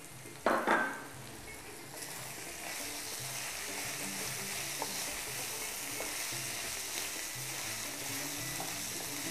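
Two sharp knocks with a brief ring about half a second in, then meat sizzling in a frying pan as it is stirred with a wooden spatula, the sizzle growing louder after about two seconds.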